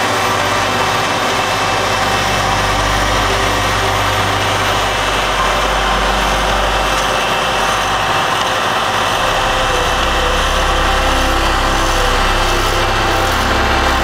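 Heavy asphalt paving machinery running with a steady, even engine drone.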